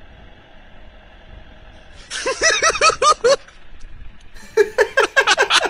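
A faint steady vehicle engine sound, then a person laughing loudly in rapid high-pitched ha-ha-ha bursts, about five a second. The laughter starts about two seconds in and breaks out again about four and a half seconds in.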